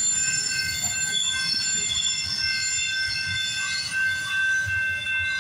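Freight train's wheels squealing in several steady high tones over a low rumble as the tail end of the train rolls past.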